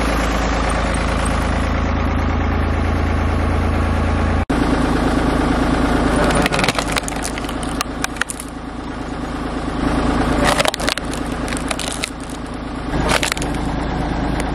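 Engine-driven log splitter running steadily. From about six seconds in, there are sharp cracks and clatter as firewood is split.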